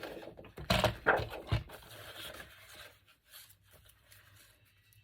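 Patterned craft paper being handled, rustling and scraping on a table, with a few sharp knocks about a second in, then quieter.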